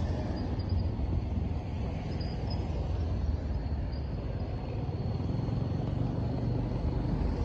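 Steady low rumble of riding a motorcycle slowly in traffic: engine and road noise, with wind on the microphone.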